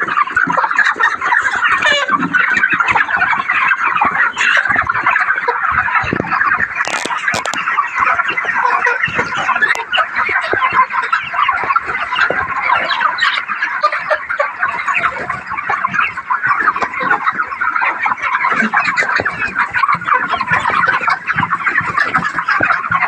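A large flock of 39-day-old broiler chickens clucking together in a dense, steady chatter of many overlapping calls, with a couple of brief sharp clicks about seven seconds in.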